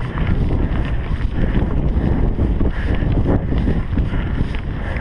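Wind buffeting the microphone of a mountain bike's action camera while riding along a rough grass-and-dirt track, with a steady rumble and scattered rattles and knocks from the bike going over bumps.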